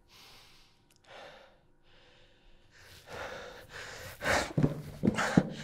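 A man breathing hard in a series of noisy gasps, faint at first and growing louder about three seconds in, with a few short voiced groans near the end.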